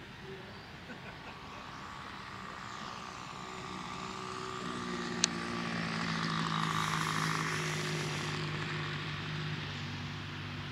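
An RC tow plane's engine and propeller running at low throttle, growing louder as the model flies low past and then fading as it lands. A single sharp click comes about five seconds in.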